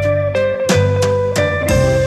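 Background music: plucked string notes, several a second, over a held tone and a steady bass line.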